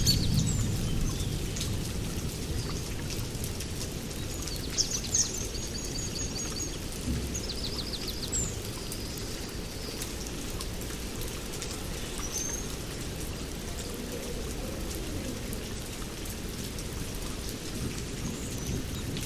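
Steady rain falling, with a deep low rumble beneath fine pattering drops. Birds chirp now and then, with a couple of short trills.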